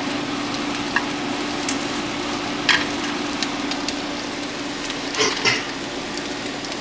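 Bacon and French toast sizzling steadily in hot pans, with a steady low hum underneath. A few sharp clicks from utensils or pans ring out, the loudest about a third of the way in and twice more near the end.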